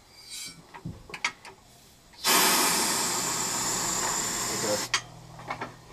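A few light knocks, then about two and a half seconds of loud, even hissing from the air jack's valve as its lever is pulled, cutting off abruptly.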